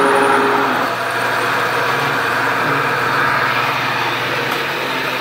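Milling machine drilling a pilot hole in thick steel plate: a steady motor hum under a harsh cutting noise, which stops suddenly near the end.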